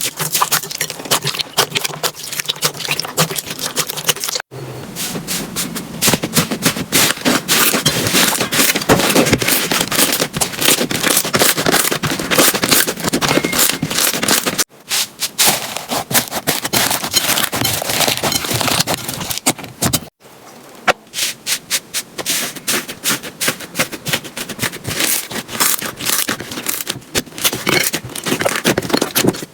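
Slime being squeezed, pressed and stretched by hand, giving dense crackling and popping clicks, in several short clips that cut off abruptly three times.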